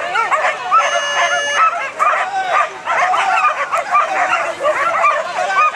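Many flyball dogs barking and yipping excitedly at once, a dense overlapping chorus of high-pitched barks. A steady electronic beep sounds for under a second about a second in.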